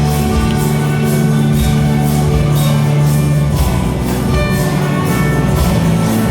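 A massed youth orchestra of some 1800 players playing held chords over a steady percussion beat.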